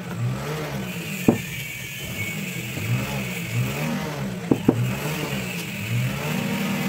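An engine runs in the background, its pitch rising and falling over and over, under a few sharp metallic clicks from a small hand tool on the pump's impeller and seal parts: one about a second in and two close together about four and a half seconds in.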